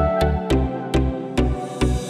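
Background music with a steady beat of bass notes and percussion hits.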